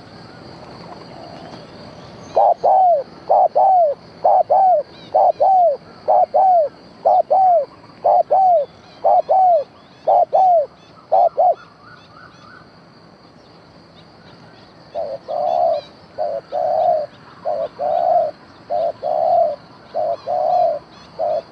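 Doves cooing. A run of clean, paired, arched coos repeats for about nine seconds, then after a pause a rougher series of coos follows. This is the call of a decoy dove used to lure wild birds into a trap.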